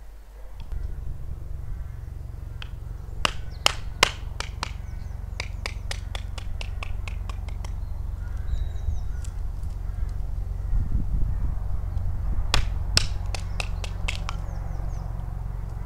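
Sharp wooden knocks of a mallet striking a branch peg set into a log stump, in irregular runs of quick taps, over a steady low rumble. Faint bird chirps now and then.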